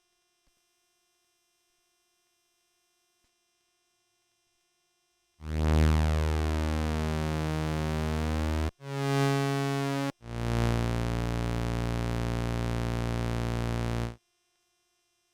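Behringer Phara-O Mini analogue synthesizer playing three held notes, dry: a long low note, a short higher one and another long low note, each starting and stopping abruptly, after several seconds of faint hum.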